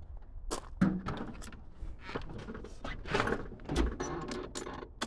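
A run of irregular clunks, knocks and rustling, the loudest a thunk about a second in.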